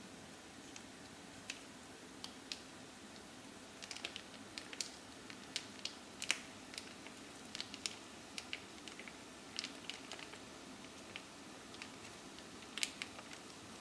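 Wooden spatula stirring chicken in coconut-curry sauce in a wok: irregular small clicks and taps, with a faint steady hum underneath.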